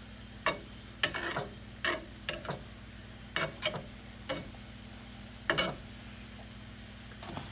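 Metal utensil scraping and clacking against a skillet in short, irregular strokes while spreading butter over frying tilapia fillets, with a steady low hum underneath.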